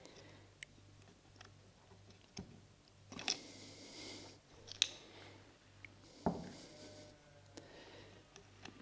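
Small clicks and short scuffs of a plastic rifle stock and a metal T-nut being handled and fitted by hand, with a dull knock about six seconds in, over a faint low hum.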